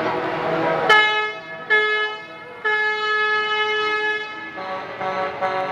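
Semi-truck horn on a race-team hauler honking: two short blasts, then one long blast of about two seconds.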